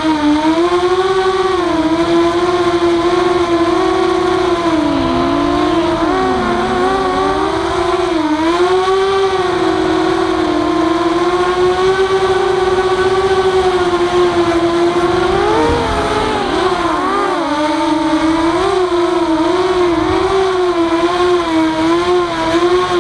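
Walkera F210 racing quadcopter's brushless motors whining, heard close up. The steady high hum dips and swings in pitch as the throttle changes, most sharply about five to seven seconds in and again around sixteen to seventeen seconds in.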